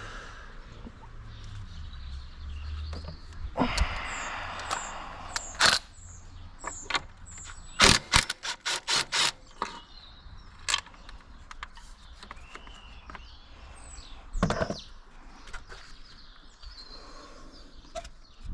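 Tool work on a car engine: a brief whirring, hissing run about four seconds in, then a quick series of sharp knocks about eight seconds in and a few single knocks later. Birds chirp in the background.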